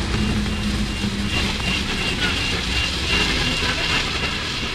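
Aerial cable car cabin passing overhead on its ropes: a steady whirring rumble with a low hum and a faint high tone that pulses on and off.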